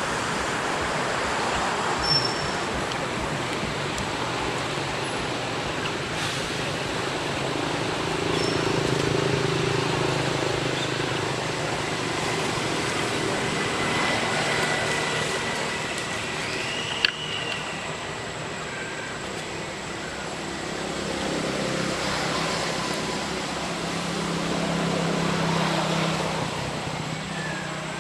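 Steady hum of road traffic, swelling as vehicles pass about ten seconds in and again near the end. A single sharp click about seventeen seconds in.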